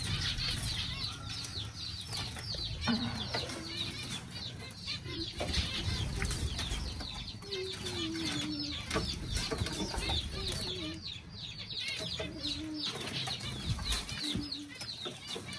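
A flock of aviary birds chirping in a dense, continuous chatter of quick, high, falling calls, with a few lower gliding calls mixed in. Wings flap and occasional light knocks sound as perches are handled.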